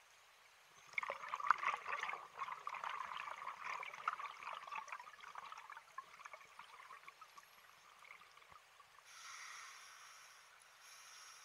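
Scuba diver's exhaled breath bubbling out of a regulator underwater: a crackling, gurgling burst about a second in that fades away over several seconds. Near the end comes a fainter hiss with faint whistling tones.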